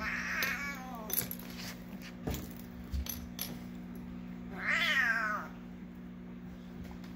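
Domestic cat meowing twice during rough play: a falling call right at the start and a longer call that rises and falls about five seconds in. A few soft knocks fall between the calls, over a steady low hum.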